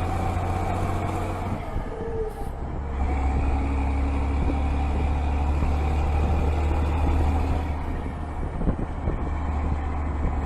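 Scania 112's 11-litre straight-six diesel running through a straight-through exhaust, its injection pump and injectors freshly adjusted. The engine note dips briefly about two seconds in, then runs steady and a little louder.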